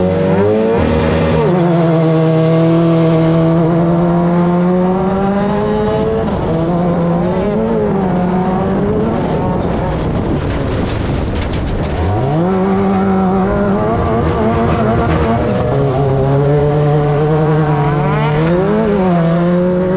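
Off-road race car engine held at high revs, its pitch wavering with small lifts. About twelve seconds in it drops sharply and climbs straight back up.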